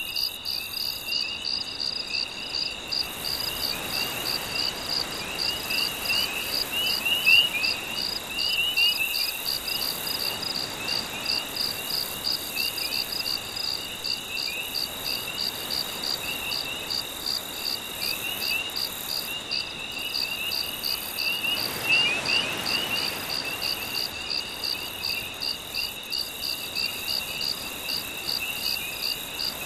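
Night chorus of crickets and other insects: a high chirp pulsing steadily about twice a second over a constant high drone, with quick trilling calls a little lower, like tree frogs. Under it runs a soft wash of gentle sea waves that swells a couple of times.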